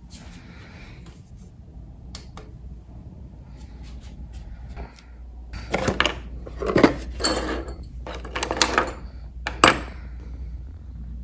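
Desk handling sounds: a cardboard Dentoform box and metal dental hand instruments being moved on a wooden desktop, with clinks, knocks and rustling. These come in clusters over the second half, over a steady low hum.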